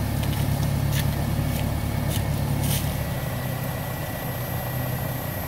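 Small motorbike engine idling steadily, just after being started, with a few light clicks in the first half.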